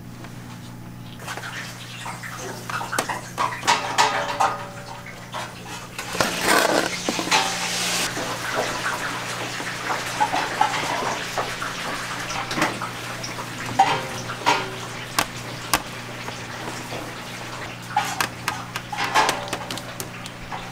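Kitchen clatter: a metal spatula and trays clink and scrape while burgers are assembled on a wire rack. A steady low electrical hum runs underneath, and a hissing noise rises for a couple of seconds about six seconds in.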